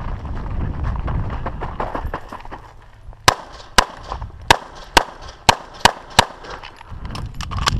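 Pistol shots being fired in a rapid string, about seven sharp cracks roughly two a second, beginning about three seconds in, with a few fainter cracks near the end. A low rumbling noise comes before the shots.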